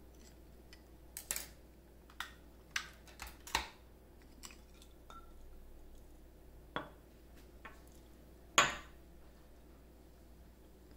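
Glass beakers clinking and knocking as a small beaker is lifted out of a water bath and glassware is moved about on a stone countertop: a run of light clinks in the first four seconds, a few more later, and one louder knock of glass set down at about eight and a half seconds.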